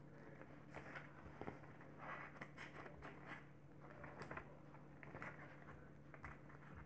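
Faint scraping and rustling of paper being cut with blunt scissors that won't cut cleanly, in short irregular scrapes.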